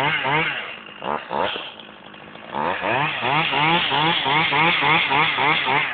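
Two-stroke chainsaw revving in short, repeated bursts, each rising in pitch, about three a second, easing off briefly about two seconds in before revving again.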